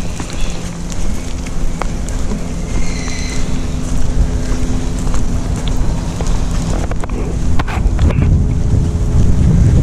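Wind buffeting the microphone, a loud low rumble over a faint steady hum.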